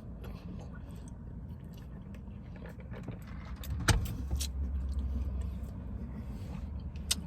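Low steady rumble of a vehicle. About four seconds in there is a sharp click, and then a deeper hum comes in and holds for about three seconds.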